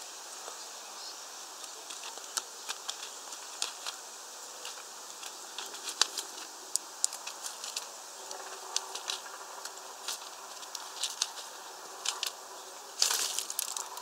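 Great tit pecking and hammering at sunflower seeds on a tray feeder: sharp, irregular taps and husk clicks, at times several a second. Near the end a louder, rustling flurry comes as the bird flies up off the feeder.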